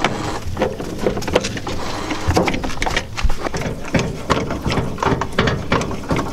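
Socket ratchet wrench clicking in quick, uneven runs as it loosens a truck camper's turnbuckle tie-down, releasing the tension on it.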